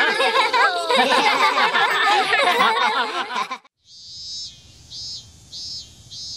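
Cartoon characters laughing and giggling together, cutting off sharply about three and a half seconds in. After a brief silence, high-pitched chirping comes in short bursts, about two a second.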